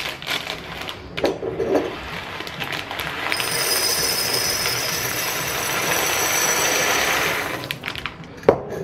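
Plastic bag of dried beans crinkling in the hands, then, about three seconds in, the beans pouring into a glass clip-top jar in a steady stream for about four and a half seconds, stopping shortly before the end.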